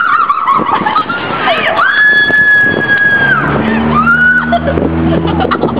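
Music: high held notes that slide down at their ends, joined by a low sustained chord about halfway through.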